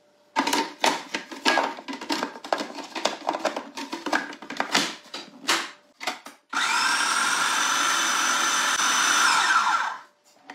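Kenwood food processor chopping basil leaves in a run of about three seconds. It starts suddenly and winds down with a falling whine. Before the run, a string of plastic clicks and leaf rustling as the leaves are packed into the bowl and the lid is closed.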